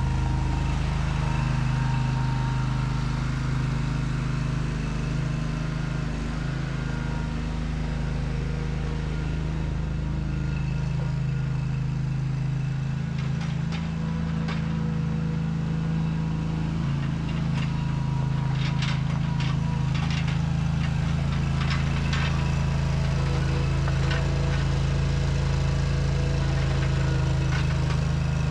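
Old OMC Mustang 330 skid steer's engine running steadily, with a series of sharp clicks or clanks about halfway through.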